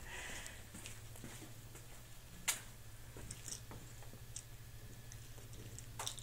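Scattered light clicks and taps of plastic pill bottles being nosed and pawed by a cat, the sharpest click about two and a half seconds in, over a faint steady low hum.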